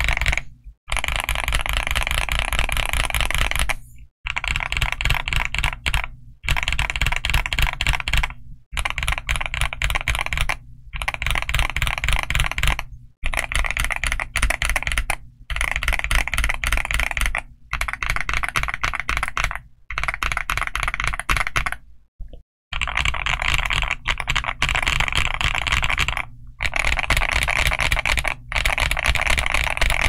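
Typing on a Sugar65 mechanical keyboard fitted with Outemu Lanny linear POM switches and Domikey Hush keycaps. Fast, steady keystrokes come in runs of about two seconds, each broken by a brief pause.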